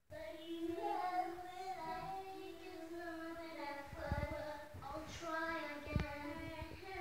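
A young girl singing a tune, holding long notes. A single knock about six seconds in.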